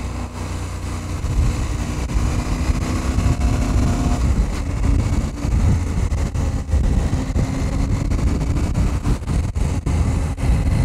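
KTM 790 Adventure's parallel-twin engine running while riding, under heavy wind rush on the microphone. The engine note rises slightly over the first few seconds, then holds steady.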